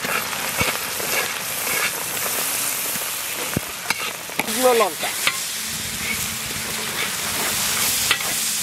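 Cumin-and-coriander spice paste sizzling as it fries in hot oil in a large wok, with a spatula scraping and stirring it around the pan.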